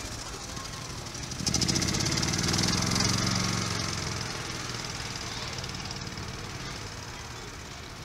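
E-Z-GO golf cart's small engine running as the cart pulls away, loudest a couple of seconds in and then fading as it moves off.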